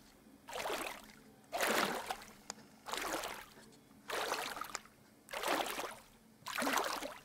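Soft water-swishing sound effect: six even swishes of water about a second apart, like small waves lapping or paddle strokes.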